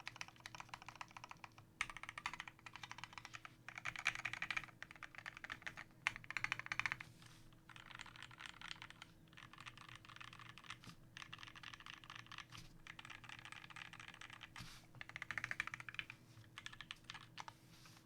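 Typing on a custom 60% mechanical keyboard: lubed and filmed Durock Linear L2 linear switches with 60 g springs on an aluminium plate in a KBDFans Tofu aluminium case, under Tai-Hao PBT keycaps. Fast runs of key presses come in bursts with brief pauses between them.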